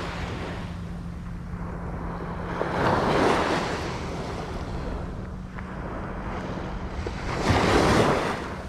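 Small surf waves breaking and washing up onto the beach, the rush swelling twice, about three seconds in and again near the end. Wind buffets the microphone, with a steady low hum underneath.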